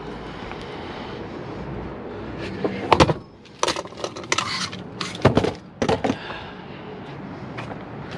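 Hard plastic and metal electronic scrap being handled and set down, a run of knocks and clatters about three to six seconds in, over low rustling.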